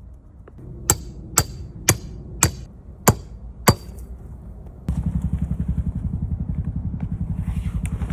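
Six sharp, ringing metallic knocks about half a second apart, like hammer strikes. About five seconds in, a louder low rumble starts that pulses rapidly and evenly.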